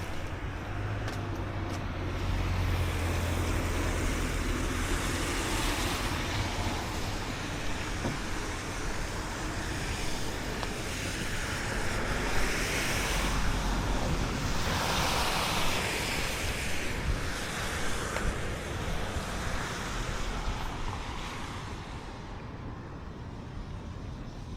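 Road traffic and wind noise: a steady rushing din with a low rumble, rising and falling in several slow swells as vehicles pass.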